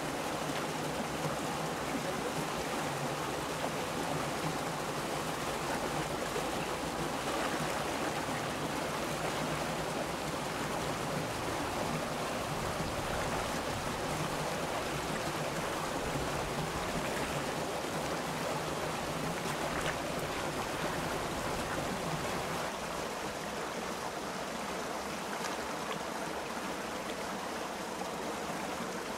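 Shallow rocky stream running, a steady rush of water spilling over a small cascade.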